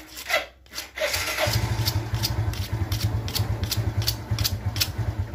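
A small motorcycle engine running steadily with a regular ticking. It starts about a second and a half in and cuts off suddenly near the end.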